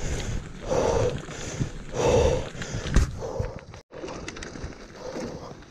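Bicycle rolling over a loose gravel road: tyres crunching on stones, with a swell about every second and a bit, a sharp knock about three seconds in, and a brief dropout just before four seconds.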